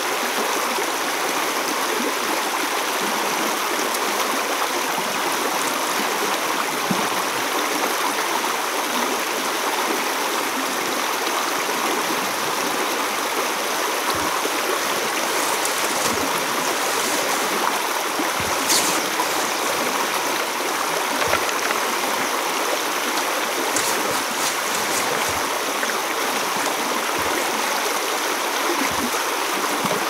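Shallow river rushing steadily over stones. A few light knocks and rustles in the second half.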